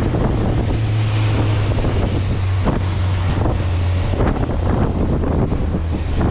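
Outboard motor of a bass boat running under way with a steady low drone that drops slightly in pitch a couple of times. Heavy wind buffets the microphone over it.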